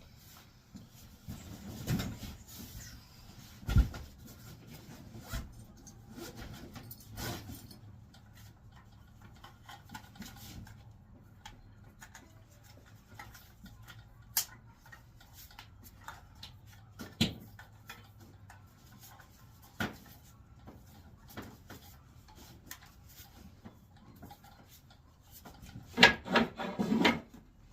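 Wooden boards being handled and shifted: scattered single knocks and rubbing of wood on wood, with a short run of louder clattering near the end.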